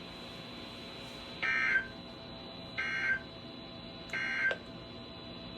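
Emergency Alert System end-of-message data bursts from a weather radio: three short bursts of digital tones, about a second and a half apart. They mark the end of the severe thunderstorm warning broadcast.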